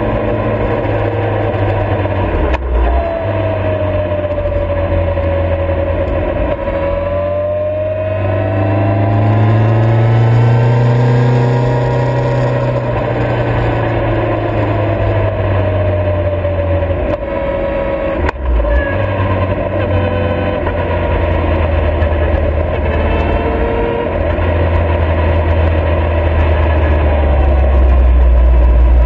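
Motorcycle engine heard from the bike itself while riding, its note rising and falling with the throttle. It drops out briefly twice, about two and a half seconds in and again about two-thirds of the way through.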